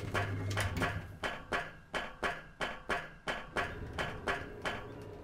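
Cartoon footstep sound effect: sharp, evenly spaced steps about three times a second as two spacesuited figures walk across a gangway. A low hum sounds in the first second.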